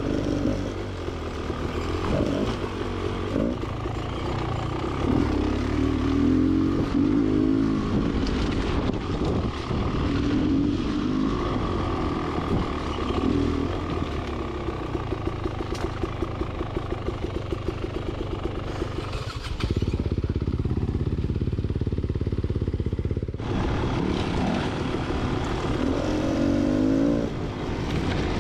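Beta XTrainer 300's two-stroke single-cylinder engine being ridden on a trail, its pitch rising and falling as the throttle is worked on and off. For a few seconds about twenty seconds in, it holds a steadier, duller drone.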